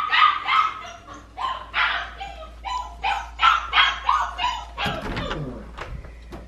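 Chocolate labradoodle puppy yipping and barking in quick high-pitched bursts, about three a second: the distress cries of a puppy left alone behind a closed door. About five seconds in, the cries stop and the door clatters open.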